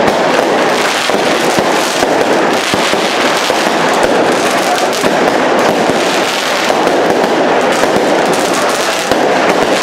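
A fireworks display with aerial shells and rockets, giving a continuous, dense rattle of rapid bangs and crackling with no pause.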